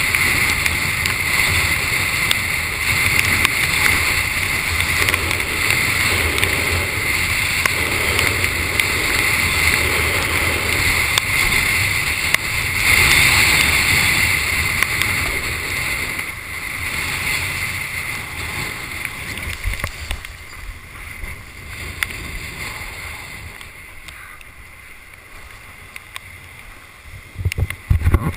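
Strong wind buffeting the microphone and water rushing and slapping past a windsurf board sailing at speed in 30-knot-plus wind. The rush is steady, then quieter from about twenty seconds in, with a few loud knocks near the end.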